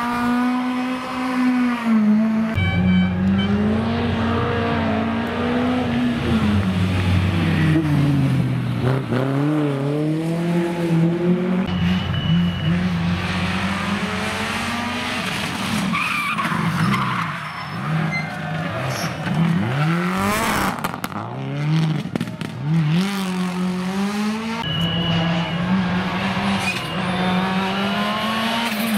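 Several rally cars driven hard one after another, among them a Subaru Impreza and a Renault Clio N5: engines revving up and dropping back through gear changes, with tyre squeal.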